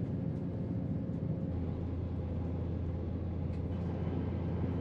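Interior of a Class 168 diesel multiple unit running along the line: a steady low drone of the underfloor diesel engine and wheels on the rails, with a deeper hum growing stronger about one and a half seconds in.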